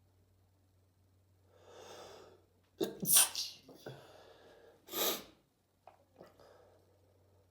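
A person sneezing: a drawn-in breath, then a loud sneeze about three seconds in and a second sneeze about two seconds later, followed by a couple of short faint sounds.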